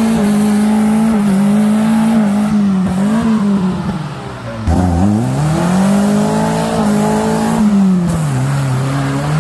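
Suzuki Samurai engine revving under load. The note sags and fades about four seconds in, then the throttle opens sharply and the pitch climbs and holds before dropping back to a lower, steady note near the end.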